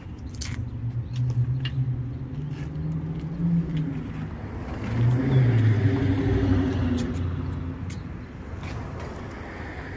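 A motor vehicle's engine accelerating, its pitch rising twice, loudest a little past the middle, with a few light clicks.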